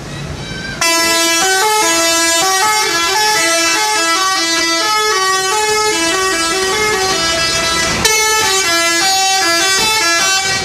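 Bus's musical 'telolet' horn playing a tune: a loud run of stepping multi-note horn tones that starts about a second in, breaks off briefly near eight seconds, then starts again.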